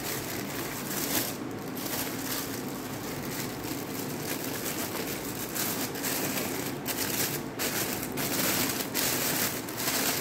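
Thin clear plastic bag crinkling and rustling as it is handled and pulled off a pair of binoculars, in quick irregular crackles that grow busier toward the end.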